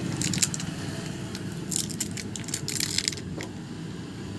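Short bursts of crinkling and clicking as plastic film and small phone parts are handled, over a steady low rumble of road traffic.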